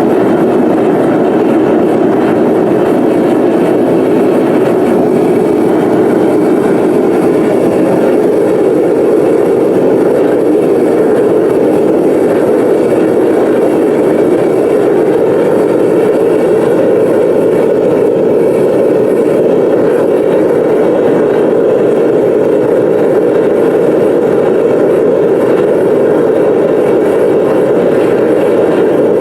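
Foundry furnace burner running steadily during a brass melt: a loud, even rushing noise that doesn't change.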